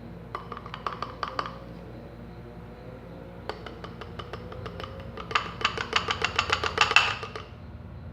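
A utensil stirring glue and shaving foam in a container, knocking and clicking rapidly against its sides. The clicks come in two bouts, a short one near the start and a longer, louder one from about the middle.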